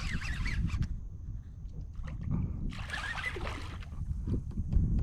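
Water splashing beside a kayak in two bursts, a hooked black drum thrashing at the surface as it is brought in, over a steady low wind rumble on the microphone.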